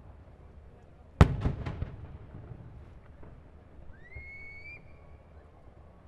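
Fireworks display: a sharp shell burst about a second in, followed by a few quick cracks and its echo, then a high whistle that rises in pitch and holds for under a second. Another burst comes right at the end.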